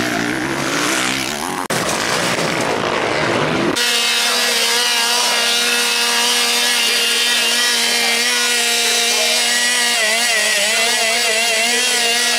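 A motocross bike's engine revs for the first few seconds. After a sudden change about four seconds in, a petrol chainsaw runs at high revs: a steady, high-pitched engine whine whose pitch wavers up and down near the end.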